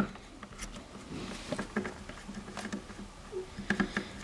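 Small irregular clicks and scrapes of fingers working a plastic wire connector loose, unplugging the battery from a self-balancing scooter's (hoverboard's) logic board, with a sharper click at the start.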